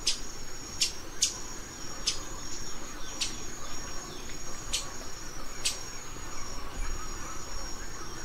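Forest insects with a steady, high-pitched trill. Short, sharp high chirps come every second or so at irregular spacing, over a faint low rush.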